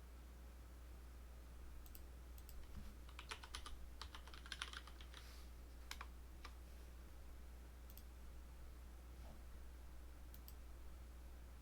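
Faint computer keyboard clicks: a few single keystrokes, then a quick run of typing about three to five seconds in, over a steady low hum.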